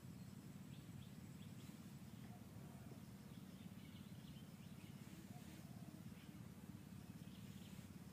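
Near silence: faint forest ambience, a steady low hum with scattered faint high chirps.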